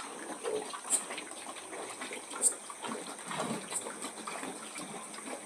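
Pigs in a pen grunting and snuffling, with wet splashing and sloshing noises. Low grunts come about half a second and three and a half seconds in, and a short high chirp recurs about every second and a half over a steady high hiss.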